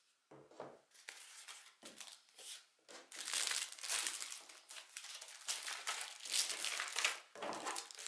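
Clear plastic packaging crinkling as it is handled: short scattered rustles at first, then a denser, louder stretch of crinkling from about three seconds in until near the end.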